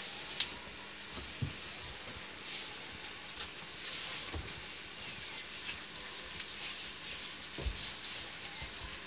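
Goats moving about on straw bedding: scattered hoof steps and rustling, with a few soft knocks and thuds.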